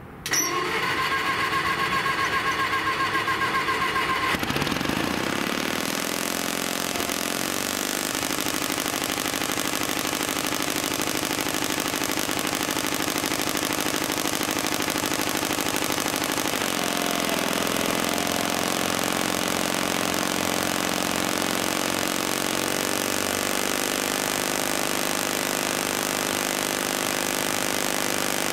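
Engine of a 1955 Bucyrus-Erie 15B cable shovel being cranked by its starter, with a pulsing whine, for about four seconds, then catching and running. It settles into a steady run, and its speed drops a step about 17 seconds in.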